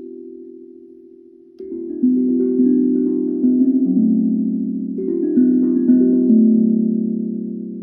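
Tuned bells struck one after another in two short runs of notes, each note ringing on and overlapping the next. The ringing of an earlier note dies away for the first second and a half, and the second run fades slowly near the end.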